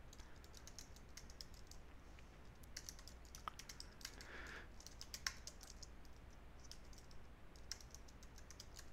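Faint typing on a computer keyboard: runs of quick, sharp key clicks with short pauses between them, over a low steady hum.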